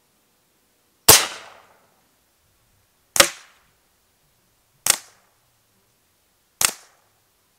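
Four shots from an FX Panthera .25 calibre PCP air rifle, each a sharp crack with a short fading tail, fired about two seconds apart; the first shot is the loudest.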